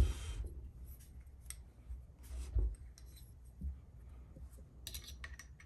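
Metal parts of a knife-sharpening system's clamp and carriage being handled and fitted together: a sharp knock at the start, another about two and a half seconds in, and scattered light clicks and rubbing, with a quick run of clicks near the end.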